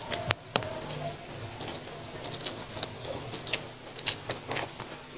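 A person chewing a mouthful of fried noodles, with irregular wet mouth clicks and smacks.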